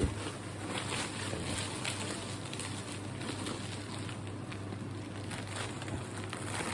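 Irregular light rustling and scraping of a cardboard box and its wrapping being handled, over a steady low hum.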